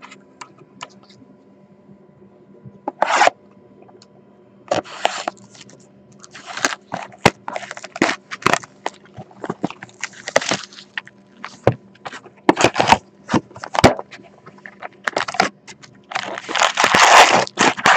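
Hockey card box and its packs being torn open and handled: irregular scraping, crackling and tearing with sharp clicks, and a longer, louder tearing burst near the end.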